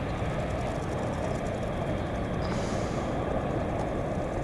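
Jet engines of a Boeing 767 airliner heard from the ground as it lands: a steady rumbling jet noise, with a brief higher hiss about two and a half seconds in.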